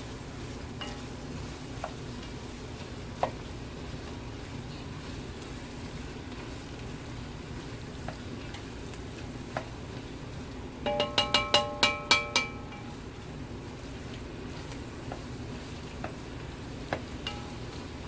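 Roux being stirred in a pot on the stove, a low steady sizzle with scattered light scrapes and clicks. About eleven seconds in comes a quick run of about eight ringing metal taps.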